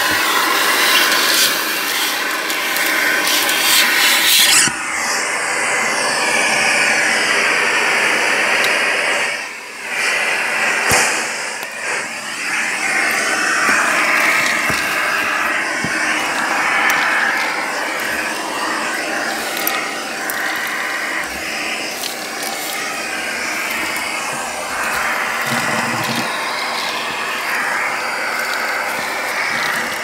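Vacuum cleaner running with its bare hose end sucking debris off cardboard. The steady suction noise shifts in tone as the hose moves, losing its hiss about four seconds in and dipping briefly near the ten-second mark.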